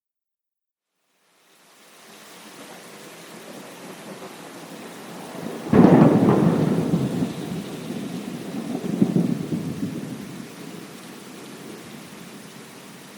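Rain fades in after a second or so of silence, then a sudden thunderclap about halfway through rumbles on, swells again a few seconds later, and dies away under the steady rain.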